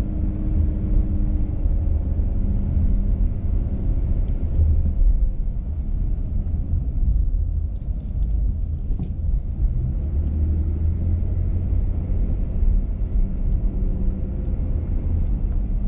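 Steady low rumble of a car driving along a street: engine and road noise, with a faint engine hum.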